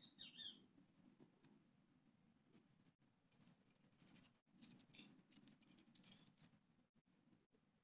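A bundle of thin wooden sticks clicking and rattling together as they are gathered up by hand, for about three seconds from the middle.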